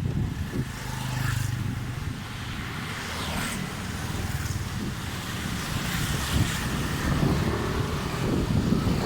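A motor vehicle's engine running close by, heard over wind buffeting the phone's microphone while cycling.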